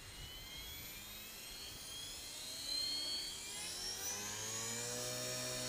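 Align T-Rex 450 Pro electric RC helicopter spooling up: a high motor and gear whine rises steadily in pitch. About four seconds in, the lower tone of the rotor blades comes in, climbs and levels off as head speed settles.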